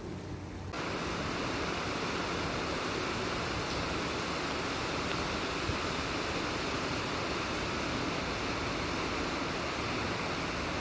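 Steady heavy rain, a dense even hiss that starts suddenly just under a second in and holds without a break.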